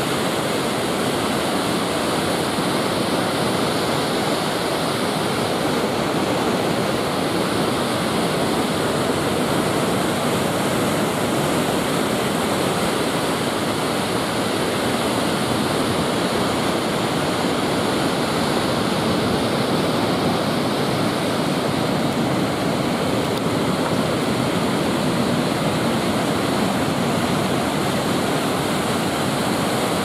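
Steady rush of a mountain waterfall, white water cascading over rock ledges close by.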